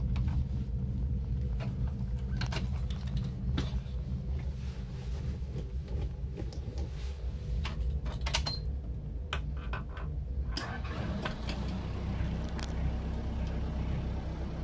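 Toyota 14B 3.7-litre four-cylinder diesel engine of a Toyota Dyna truck idling steadily, heard from inside the cab, with a few light clicks and key jangles over it.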